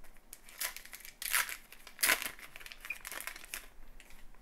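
Trading-card pack wrapper crinkling in several short bursts as it is torn open and the cards are slid out.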